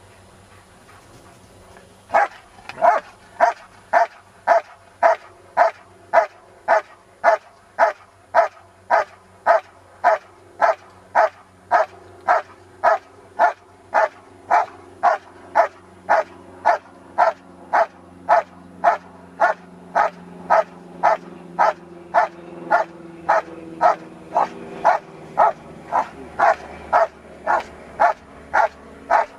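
German shepherd dog barking steadily and rhythmically at a helper in the blind, about two barks a second, starting about two seconds in. This is the hold-and-bark of IPO protection work.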